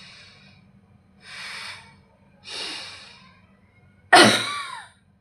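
A person doing a controlled cough: three slow, audible breaths, then a single strong cough about four seconds in.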